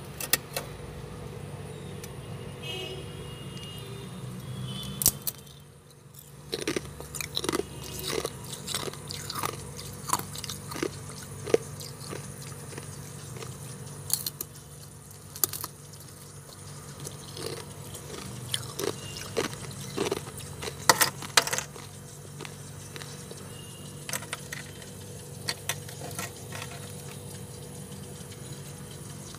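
Crunchy bites and chewing of chunks of freezer frost ice: many sharp, irregular crunches, over a steady low hum.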